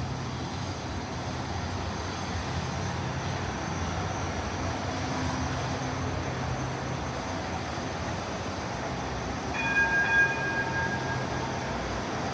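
Light-rail tram running with a steady rumble and hum. About ten seconds in, a brief pitched warning tone sounds for under two seconds.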